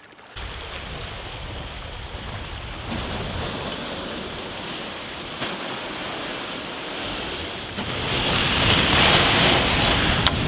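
Wind buffeting the microphone over small waves washing onto a sandy shore, growing louder about eight seconds in.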